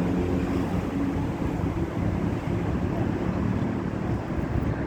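Low, steady rumble of a departing Boeing 737 MAX 8's CFM LEAP-1B jet engines receding into the distance, mixed with wind buffeting the microphone.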